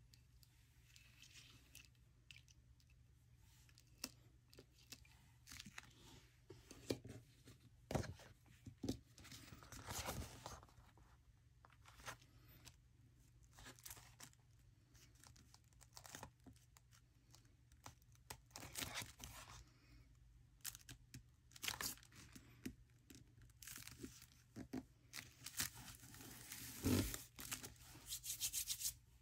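Faint paper-handling noises: rustling, crinkling and short ripping sounds of paper being moved, with scattered light taps, loudest about 27 seconds in. A faint steady low hum sits underneath.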